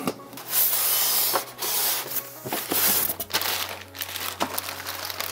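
Packing tape on a cardboard box being slit open with a blade, in rough ripping strokes, followed by plastic packaging bags crinkling.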